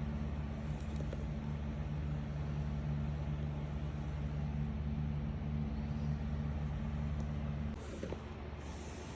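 Electric power-seat motor running steadily as the seat travels forward along its rails, then stopping about eight seconds in at the end of its travel.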